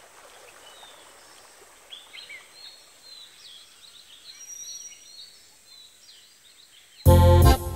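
Background ambience of small birds chirping in short, scattered calls over a soft hiss. Loud music starts suddenly near the end.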